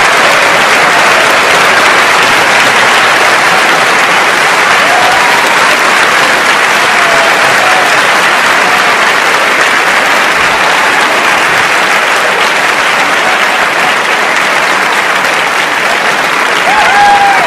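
A large concert audience applauding steadily and loudly, with a few voices whooping briefly over the clapping.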